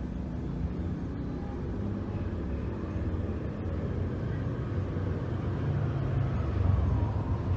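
Low, steady engine rumble of a motor vehicle, growing louder toward the end.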